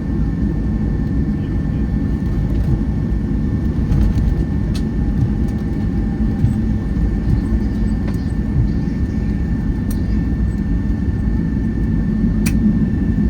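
Cabin noise of a Boeing 757-200 taxiing in after landing: a steady low rumble of engines and airflow with a thin, steady high whine and a few faint clicks.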